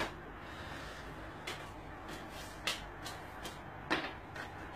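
Bundles of banknotes being handled and set down on a table: a string of short knocks and slaps at irregular intervals, the loudest at the very start and about four seconds in.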